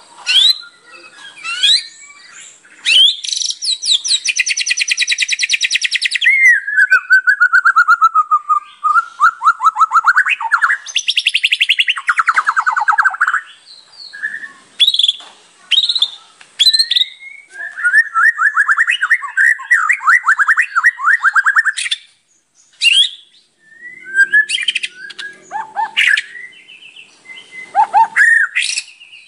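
White-rumped shama in full, varied song: loud clear whistles, fast rattling trills and long chattering runs, with short pauses between phrases.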